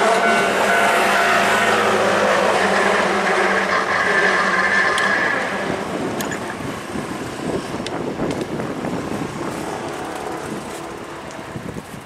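Hankyu 3300 series electric train rolling away around a sharp curve, its wheels running on the rails and fading into the distance. Steady high tones ride over it in the first half and stop about six seconds in.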